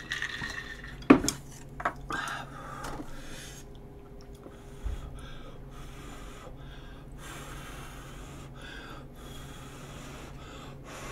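Close-miked eating sounds: a couple of sharp knocks of dishes and utensils on the table early on, then repeated short chewing and slurping noises as udon noodles are eaten from a bowl.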